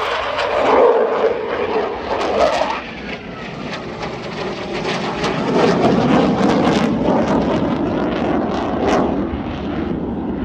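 Eurofighter Typhoon's twin jet engines heard from the ground during a display turn: a loud rushing jet noise that swells, dips about three seconds in, then builds again with a ragged crackle.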